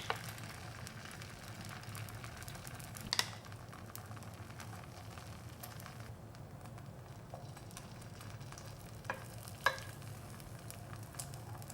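Beaten egg mixture frying gently in a lightly oiled pan on low heat, a soft steady sizzle. A few short clicks, about three seconds in and twice near nine to ten seconds.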